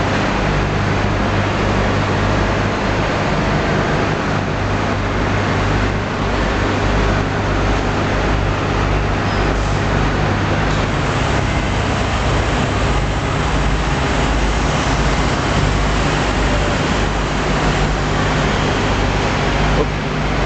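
Ambar vertical baler's hydraulic power unit running: a steady, loud mechanical hum with a wash of machine noise over it.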